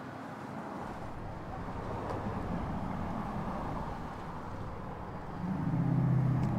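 Street traffic: a steady rush of passing cars, with a low engine hum that swells to its loudest near the end as a vehicle goes by.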